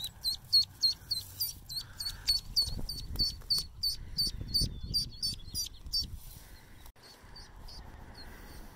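A duckling peeping rapidly and loudly, about three or four short high calls a second: the distress peeping of a duckling picked up after being cut off from its mother. After about six seconds the calls thin out and grow fainter. There is low rumbling handling noise in the middle.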